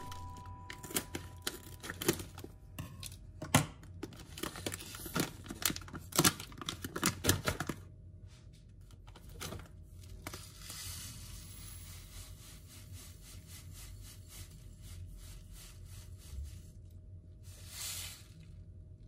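A plastic-lined quinoa pouch being snipped open with scissors and handled, sharp snips and crinkles, then dry quinoa grains poured into a glass bowl, a fine steady rattle lasting about eight seconds and ending with a short louder rush.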